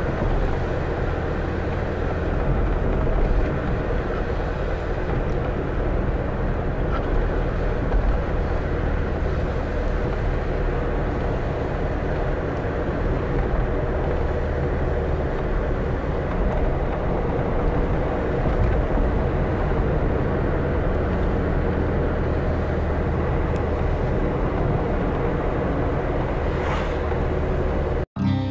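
A steady low rumble with a faint hum in it that cuts off suddenly near the end.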